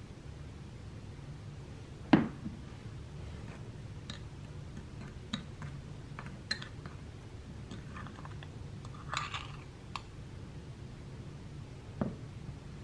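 Metal teaspoon clinking against a small ceramic bowl and scraping through white powder as it is scooped out: a sharp clink about two seconds in, scattered light taps, a short scraping rustle around nine seconds, and another clink near the end, over a low steady hum.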